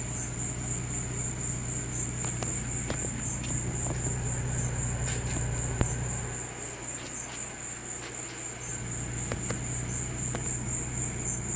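Crickets chirping in a continuous high, evenly pulsing trill over a low steady hum.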